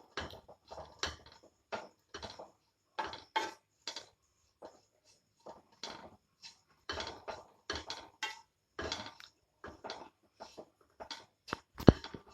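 A spatula stirs and scrapes grated coconut dry-roasting in a pan, in short irregular strokes. There is one sharp knock against the pan near the end.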